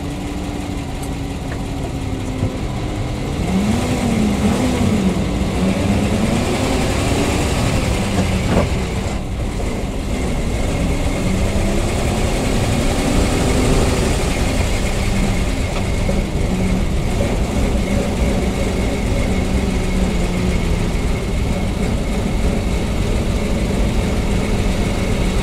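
PAZ-672 bus's V8 engine running as the bus drives, steady at first, then louder from about three seconds in with the revs rising and falling. It runs smoothly, with no knock: the rebuilt engine pulls under load.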